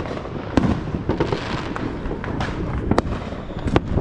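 Fireworks going off all around: a dense run of sharp pops and cracks, the loudest about half a second, three seconds and just under four seconds in.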